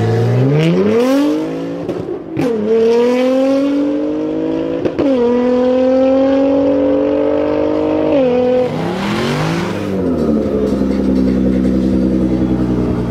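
Nissan GT-R R35's twin-turbo V6 under full-throttle acceleration from a launch, its pitch climbing through the gears, with quick upshifts about two, five and eight seconds in. After about ten seconds a steadier, lower engine sound takes over.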